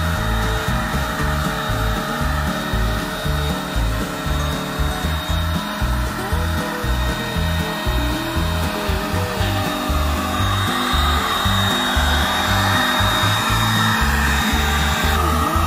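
Handheld electric paint spray gun running continuously while spraying paint: a steady motor whine with a high pitched note and an airy hiss. Background music with a bass beat plays underneath.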